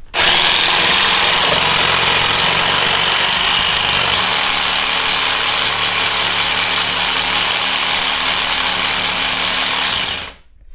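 Einhell Power X-Change 18 V cordless jigsaw cutting into a thick piece of timber on its exact (pendulum-off) setting. It starts at once, runs steadily under load for about ten seconds and stops near the end. The blade is meeting a lot of resistance, so the cut is slow and hard-going.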